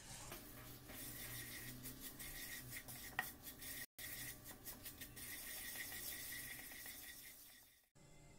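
A spatula scraping and rubbing across the bottom of a frying pan in quick repeated strokes, stirring honey into crumbled sugar so that it melts. The sound cuts out sharply for a moment twice.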